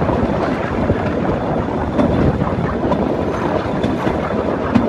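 Bamboo train (norry) running along the rails from on board: a steady rattling clatter of its wheels over the track, with its small engine running underneath.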